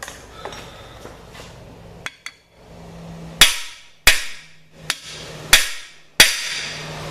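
A hammer striking a cam bearing installer tool, driving a cam bearing into its bore in a big-block Chevy 396 engine block: a couple of lighter taps, then four hard, ringing metal blows in the second half.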